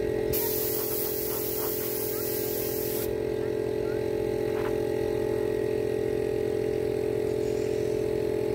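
Two small air compressors running with a steady, even hum. A paint spray gun hisses from just after the start to about three seconds in, then stops.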